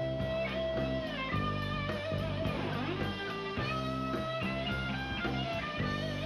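Live rock band playing an instrumental break: an electric guitar plays a lead line of held notes, some bending in pitch, over bass guitar and drum kit.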